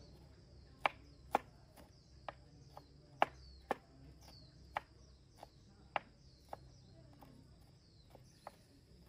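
Sharp knocks or taps, roughly two a second and uneven in loudness, over a steady high chirring of insects.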